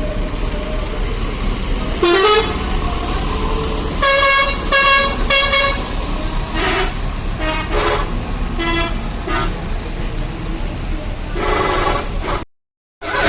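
Bus telolet horn, a multi-tone musical air horn, playing a string of tooted notes: a rising glide about two seconds in, three loud blasts a second later, then shorter notes and a warbling tone. It cuts off abruptly near the end, over steady street noise.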